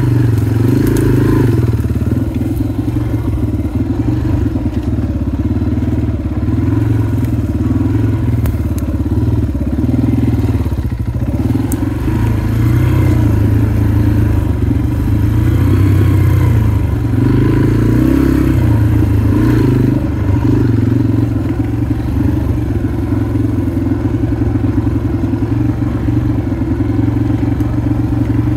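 Motorcycle engine running at low trail speed, a steady low note that swells and eases a little now and then with the throttle.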